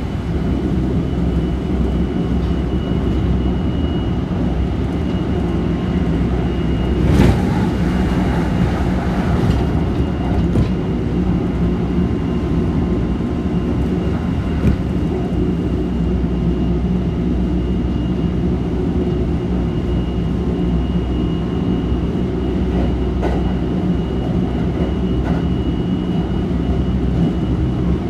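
Running noise inside a Kintetsu 1220 series electric train with Hitachi GTO-VVVF control: a steady rumble of wheels on rail at speed with a thin steady high tone. A single sharp knock comes about seven seconds in.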